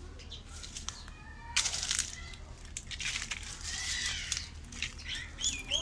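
Birds chirping in short calls, with loud rustling and crackling of leaves and dry stems as gourd vines are brushed past, loudest about a second and a half in.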